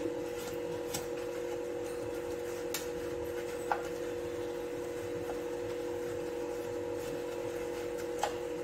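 A steady two-tone hum from a running appliance, with a few faint light clicks as a silicone brush spreads oil around a baking tray.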